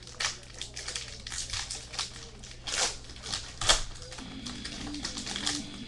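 Silver foil wrapper of a baseball card pack crinkling and tearing as it is opened by hand: a run of sharp crackles. Faint guitar music comes in about four seconds in.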